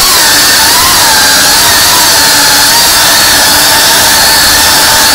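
FPV quadcopter's brushless motors and propellers running with a steady high whine over a loud hiss, the pitch wavering and dipping slightly as the throttle changes.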